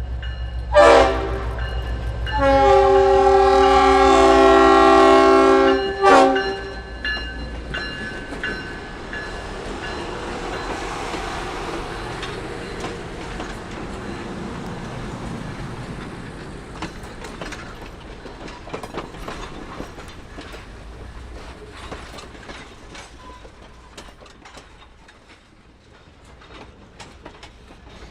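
Passing train's locomotive horn sounding a multi-note chord in three blasts: short, long, short. The train then rolls by with a rumble and wheel clatter that fades away.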